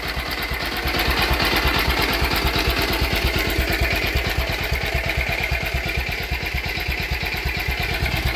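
High-compression (18.6:1) diesel engine converted to run on woodgas with spark ignition, running steadily just after starting, with an even, rapid firing beat. The ignition is timed at about 10 degrees before top dead centre.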